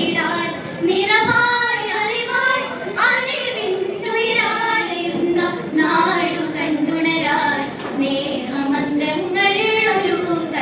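A young female voice singing a continuous melody, sustaining and bending its notes.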